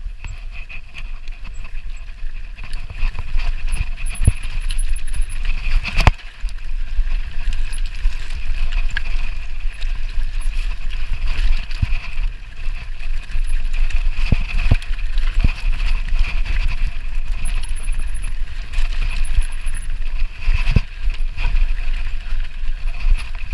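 Mountain bike descending a rough, rocky trail: tyres crunching over loose stone and the bike rattling, with frequent sharp knocks as it hits rocks. Wind rumbles steadily on the microphone.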